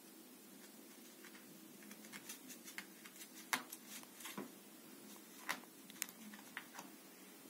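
A cat's paws stepping on and brushing against glossy magazines on the floor: faint, scattered papery taps and rustles, a few sharper clicks among them.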